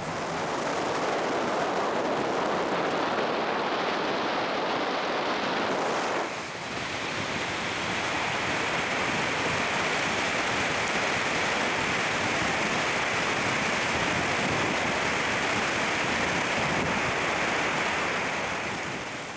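Steady rushing wind noise from driving with a car window open. About six seconds in it dips briefly, then goes on with a higher, hissier rush.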